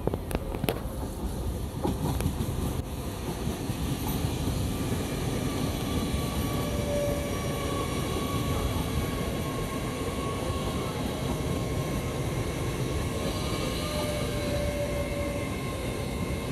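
Train running on the line at a railway station: a steady rumble of wheels and running gear with faint high whining tones over it, after a few sharp clicks in the first seconds.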